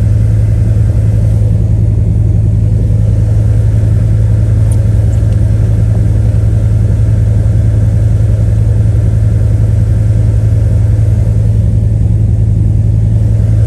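Steady low drone of a 2000 GMC Sierra 1500 pickup being driven, heard from inside the cab: engine and road noise, with the heater running.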